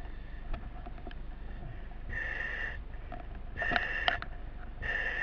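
A firefighter breathing through a self-contained breathing apparatus mask: three whistling hisses from the demand valve on each inhalation, about a second and a half apart. A few sharp knocks of equipment are heard in between.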